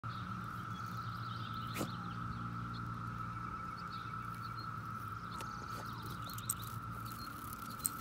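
Steady, even drone of a Brood X periodical cicada chorus, with a few bird chirps and some brief clicks over it.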